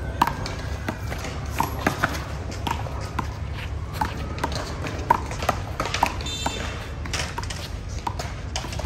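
Rally of one-wall handball: the small rubber ball is slapped by hand and smacks off the wall and the court, giving a series of sharp, irregular slaps about every half second to second. A steady low rumble runs underneath.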